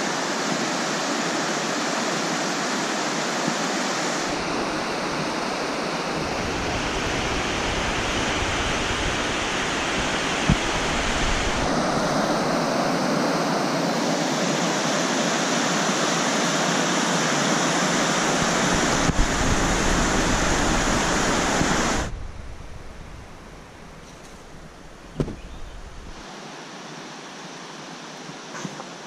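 Whitewater rapids of a mountain river, the Duckabush, rushing over boulders: a loud, steady rush of water. About 22 seconds in it drops suddenly to a fainter, more distant rush.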